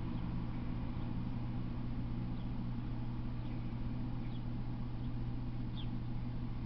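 Steady low hum with background hiss, and a few faint, short high bird chirps scattered through it.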